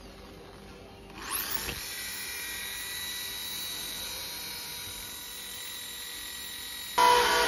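Handheld electric drill spinning up about a second in with a rising whine, then running steadily at a high pitch while held against the motorcycle's frame. Near the end, a louder, lower-pitched motor sound cuts in abruptly.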